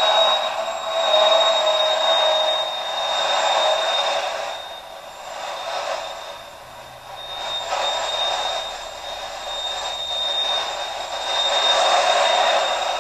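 Modified pulling tractor's engine running hard under load as it drags the weight sled, heard as a thin, rough noise that swells and fades several times, with a steady high whine over it.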